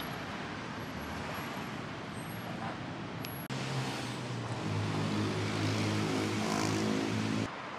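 Street traffic noise as a steady wash. About halfway through, the sound cuts to a louder low hum from a running vehicle engine, steady in pitch with a step or two, which stops suddenly near the end.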